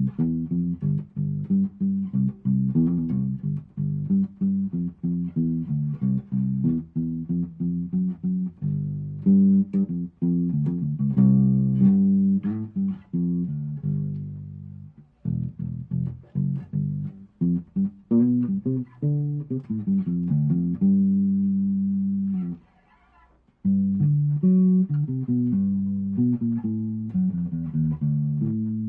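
1980s made-in-Japan Tokai Hard Puncher P-bass electric bass played as a run of plucked notes, with a short pause about two-thirds of the way through.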